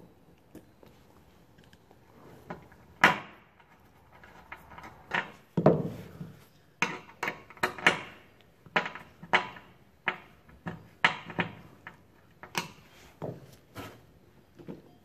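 About fifteen sharp, irregularly spaced knocks and clinks, starting about three seconds in: small metal hardware and tools being handled and set down while countersunk screws with washers are fitted through a rubber mat into tapped holes.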